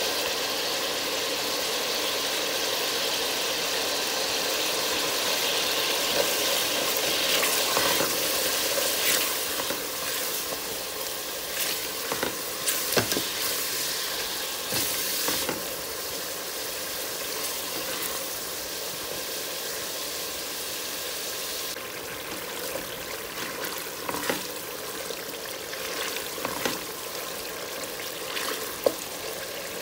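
Onion and tomato masala sizzling in oil in a pot, a steady hiss, while a wooden spatula stirs it with scattered scrapes and knocks against the pot.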